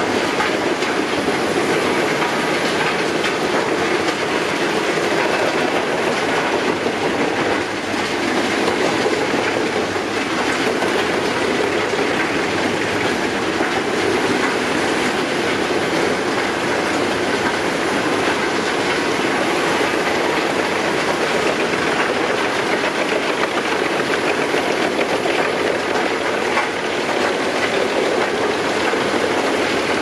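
Pezzolato PTH 1400/1000 drum wood chipper, driven by a 700 hp Volvo Penta engine, chipping logs under load. It makes a steady, dense rattling clatter of wood being cut, with chips blowing out of the discharge spout.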